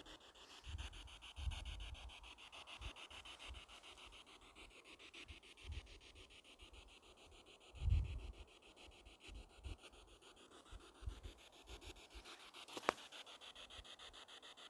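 Handling noise of a handheld camera's microphone: a faint steady hiss with scattered low thumps, and one sharp click about two seconds before the end.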